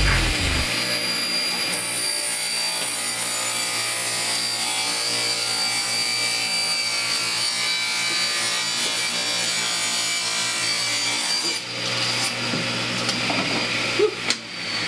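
Table saw running and cutting a short block of construction-grade 2x6 lumber, a steady high whine from the blade with a brief dip about three-quarters of the way through. A few sharp knocks near the end.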